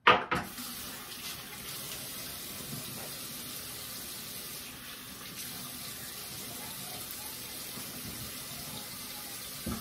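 Bathroom sink tap running steadily, then shut off at the very end.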